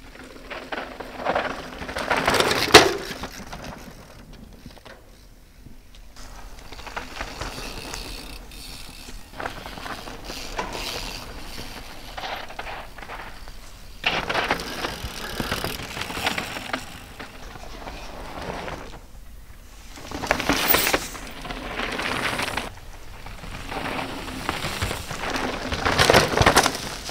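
Mountain bikes ridden fast down a dry dirt trail: tyres on loose dirt and the bikes' own noise, with riders passing close several times, the loudest passes near the start and near the end.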